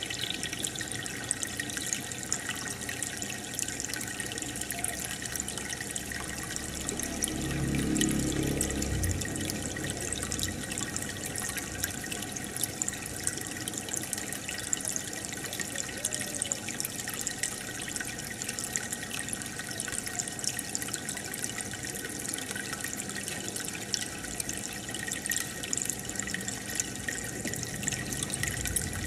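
Aquarium water bubbling and trickling steadily, with a fine crackle of small air bubbles breaking at the surface. A brief low hum swells and fades about eight seconds in.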